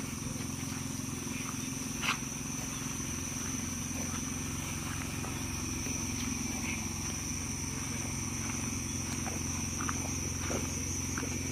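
Steady night-time outdoor ambience: a continuous high insect drone over a low steady hum, with a single short knock about two seconds in.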